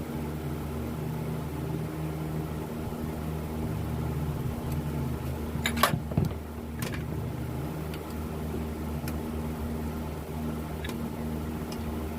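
Steady low machine hum with a few sharp clicks or knocks about halfway through.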